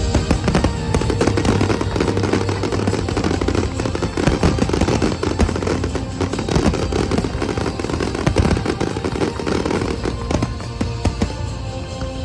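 Fireworks going off in a rapid, continuous barrage of bangs and crackles, over loud music.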